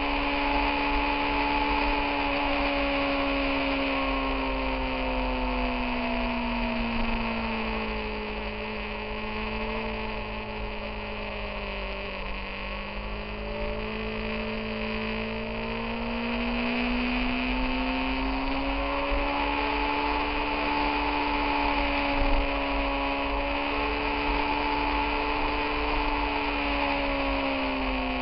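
Motorcycle engine running under way, with wind noise, heard from on board. The engine note sags for several seconds around the middle as the rider eases off, then climbs again as the bike picks up speed.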